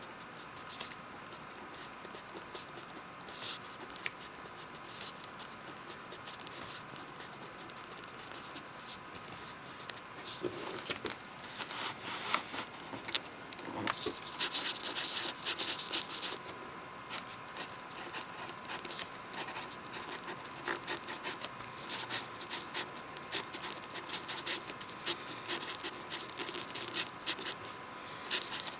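Pen writing on lined notebook paper: short scratching strokes, sparse at first, then busier and louder from about a third of the way in.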